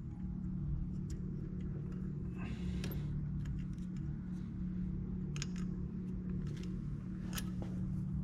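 A few light metallic clicks and taps from brake pad retaining clips and pins being fitted into a Focus RS Brembo caliper, heard over a steady low hum.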